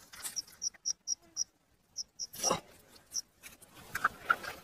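A cricket chirping in short, high-pitched pulses, about four a second, in short runs. A single brief, louder sound breaks in about halfway through.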